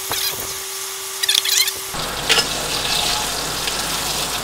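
Chicken drumsticks sizzling and crackling as they fry in butter and oil in a frying pan. A steady hum is heard until about halfway through, where the sound changes abruptly.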